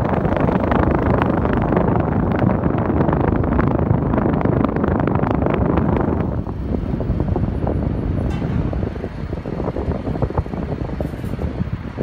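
Toshiba mini-split's outdoor condenser fan running, its discharge air blowing on the microphone as a loud rush of wind noise. About six seconds in the wind noise drops away, leaving the fan's quieter, steady whoosh.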